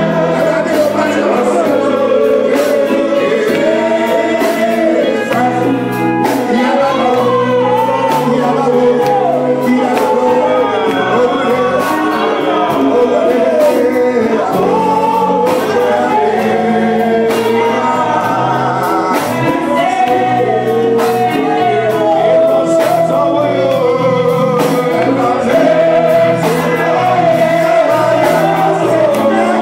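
Gospel music: voices singing a melody over a band with a stepping bass line and a regular beat.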